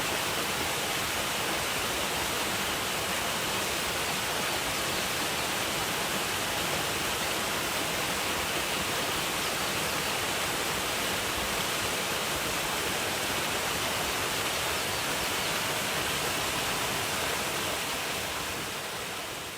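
Waterfall: a steady, dense rush of falling water, fading out in the last couple of seconds.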